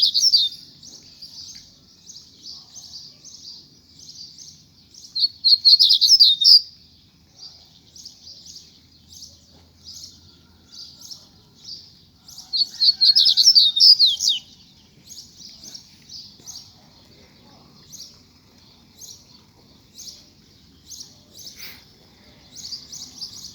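Double-collared seedeater (coleiro) giving short repeated high chirps, twice breaking into a loud burst of rapid song lasting about a second and a half to two seconds.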